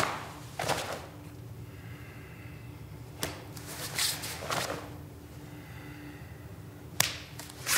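Cotton karate gi snapping and swishing with fast kicks and strikes of a kata: about six short, sharp cracks spaced unevenly, over a low steady hum.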